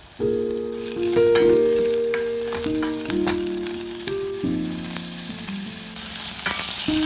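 Garlic and onion sizzling in hot oil in a stainless steel pot, with the clicks and scrapes of a spatula stirring. Background music with held notes that change every second or so plays over it.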